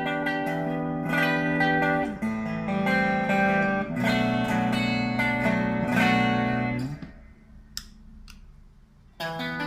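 PRS SE Custom 24 electric guitar with a roasted maple neck and fingerboard, playing ringing chords that change every second or two. The playing stops about seven seconds in and starts again near the end.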